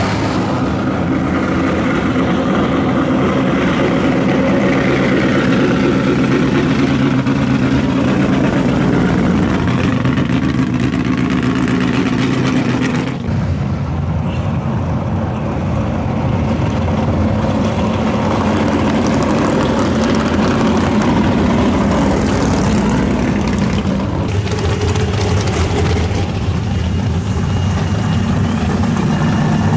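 Classic muscle car engines running at low speed as the cars drive slowly past, a steady layered engine sound. It changes abruptly twice as one car's engine gives way to another's.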